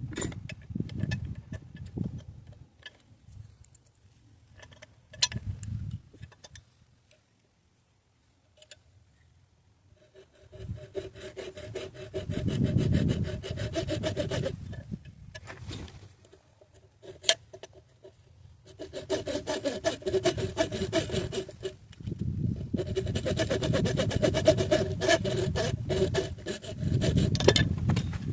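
Hand filing on a pistol trigger part: rapid back-and-forth rasping strokes, sped up to double speed. It comes in three long runs with pauses between them, after a few scattered scrapes and clicks near the start.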